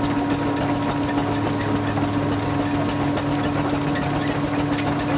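Vintage tractor engine running steadily at an unchanging speed, a constant hum.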